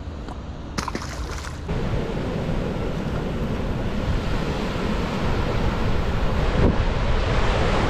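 Rushing wind on the microphone mixed with water noise, growing steadily louder, with a short rattling burst about a second in.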